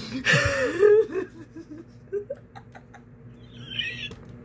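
A woman's excited high squeal, then a string of giggles that fades away, and a short high squeak near the end.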